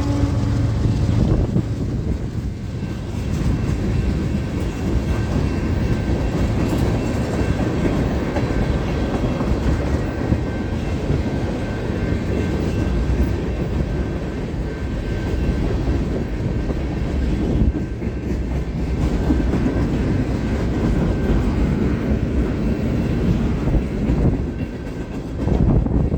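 Freight train cars of a long CSX mixed freight rolling past at close range, a steady rumble and rattle of wheels on rail. A held pitched tone fades out in the first second.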